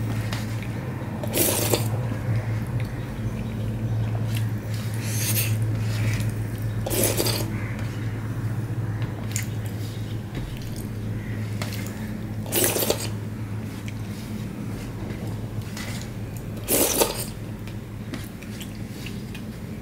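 Hand-eating sounds: fingers mixing wet rice and dal on a steel plate, squishing and scraping against the metal, with several short louder scrapes spread through, over a steady low hum.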